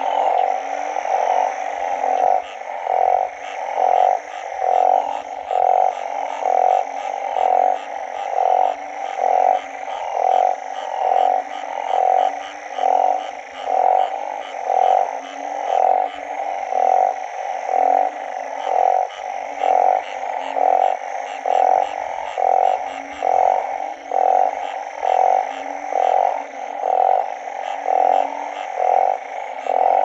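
A frog croaking loudly in a steady rhythm, about one call a second. Fainter, higher calls from other frogs or insects sound behind it.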